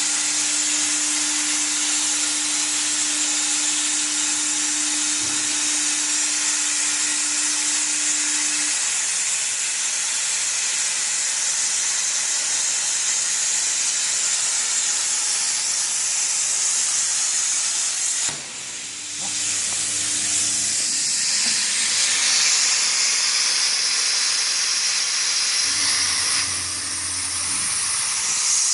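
CNC plasma cutter's torch cutting steel plate: a loud, steady hiss of the plasma arc and its air jet. A low steady hum sits under it for the first nine seconds. About 18 seconds in the hiss drops away briefly, then comes back.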